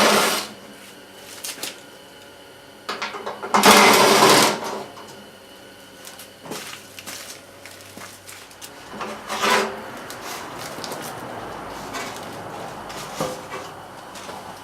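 A power driver whirring in three short bursts, backing out the sheet-metal screws that hold the torpedo heater's housing halves, with light clicks and clinks of metal in between.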